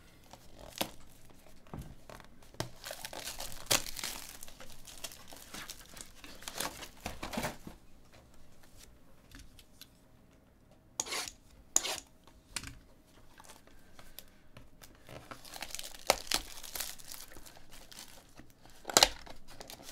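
Plastic shrink wrap being torn and crumpled off a cardboard trading-card box, in irregular crackling rustles. Midway there are a couple of sharp clicks from handling the cardboard box, then more crinkling and a loud snap near the end.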